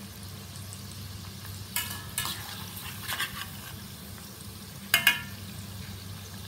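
Yam cubes deep-frying in hot oil in a wok, a steady sizzle, while a perforated steel skimmer scrapes and clinks against the pan a few times, with a sharp double clink about five seconds in.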